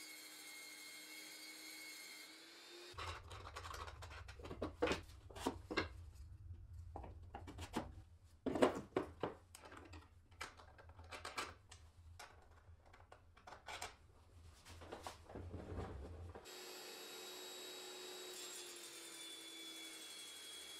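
Tools working wood by hand: a run of irregular knocks and scraping strokes from about three seconds in until about sixteen seconds, over a low rumble. Before and after it, a steady hum with a faint whine.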